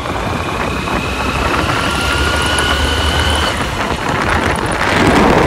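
Wind rushing over the microphone and the rumble of a motorcycle riding along a road, with a faint steady whine in the middle that grows louder toward the end.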